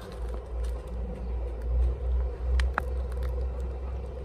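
A low rumble that swells and fades, with a faint steady hum underneath and a couple of small clicks about two and a half seconds in.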